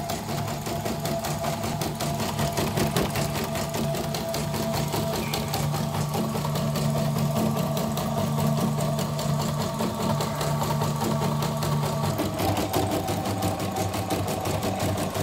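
YOKO portable embroidery machine running a stitch-out: a rapid, regular needle-stroke clatter over a steady motor hum, with a small change in the running sound about twelve seconds in.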